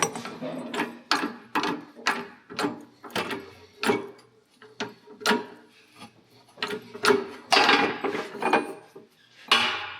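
Irregular metal clanks and clicks, roughly two a second, with a couple of longer scrapes near the end: tools working a large threaded seal nut loose on a tractor's drive housing.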